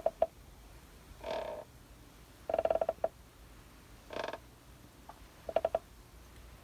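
Rocking chair squeaking as it rocks back and forth. Each swing gives one smooth drawn-out squeak, and the return swing gives a quick stuttering creak.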